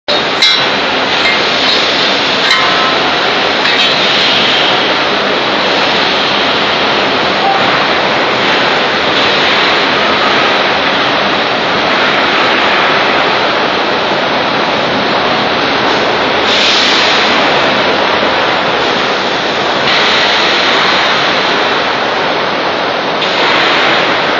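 Steady loud rushing din of foundry molding-line machinery, with a couple of metallic clinks near the start and a high hiss that swells twice later on.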